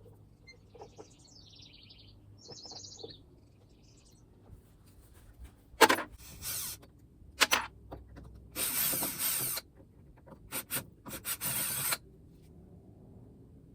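A bird chirps a few times at the start. From about six seconds in come loud clanks and rasping bursts, each up to about a second long, from hand-tool work with wrenches and breaker bars on the old truck's grain box.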